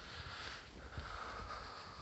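Quiet room tone, with faint low thumps and a faint steady high tone.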